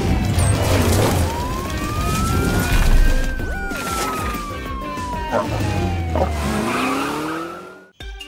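Cartoon sound effects and music for a vehicle call-out sequence. A slow wailing siren rises and falls over a low bass rumble, with sharp mechanical clicks and hits, and the whole thing cuts off abruptly near the end.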